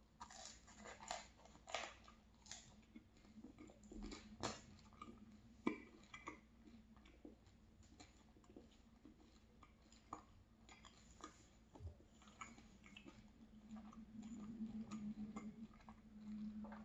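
Close-miked chewing of a mouthful of linguine in tomato sauce: soft, wet, irregular mouth clicks and smacks. Near the end a low steady hum comes from the eater.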